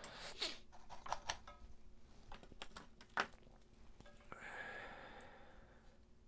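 Light clicks and knocks of small tools and parts being handled on a cutting mat at a soldering bench, several in the first three seconds and the sharpest about three seconds in. Near the end comes a soft breathy exhale.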